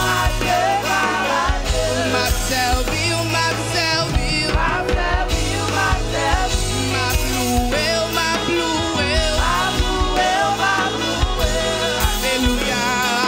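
Live Haitian Creole worship song: a woman sings a wavering melody into a microphone over a band, with an extended-range electric bass holding long low notes under short drum hits.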